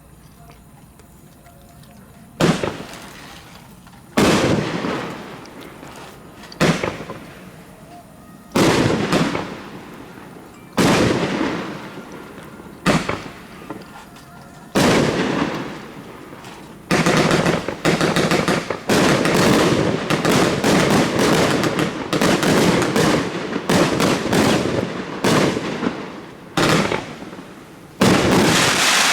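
Fireworks going off: loud single bangs about two seconds apart, each fading away over a second or so, then a dense rapid volley of bangs for several seconds past the middle, and one last loud bang near the end.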